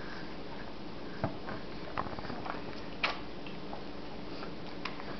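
A baby eating kiwi with her hands: a handful of short, scattered clicks and smacks from her mouth and fingers on the plastic high-chair tray, over a steady low hum.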